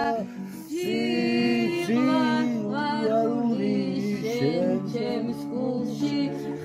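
Georgian folk song sung by several voices together in harmony. A long held chord breaks off at the start, and a new phrase begins about a second in, with the voices gliding between notes.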